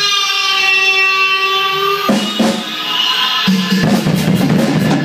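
Rock music: a held electric guitar chord rings for about two seconds, then the drum kit comes in with drum and cymbal hits that build into a busy fill.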